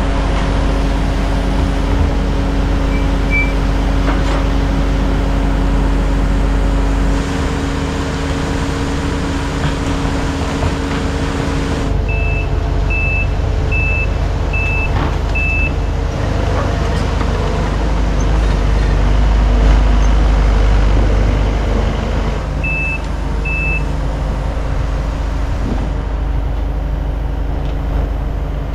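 Diesel engines of two compact track loaders running steadily while carrying a load. A backup alarm beeps five times around the middle and twice more later.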